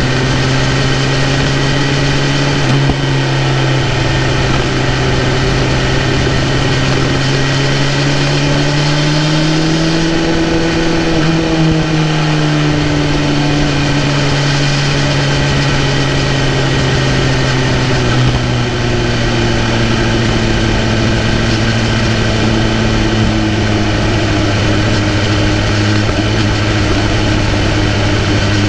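BMW S1000RR's inline-four engine running steadily under way, its pitch rising gently about nine seconds in, easing back down, and settling a little lower in the second half.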